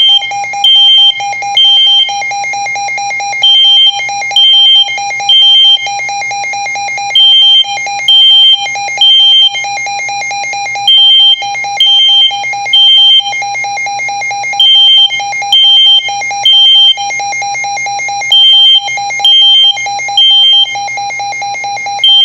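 A smoke detector's alarm sounding its three-beep evacuation pattern, shrill high beeps in groups of three repeating about every four seconds, over the continuous rapidly pulsing lower alert tone of a Midland WR120 weather radio. The smoke detector's beeps are the louder of the two.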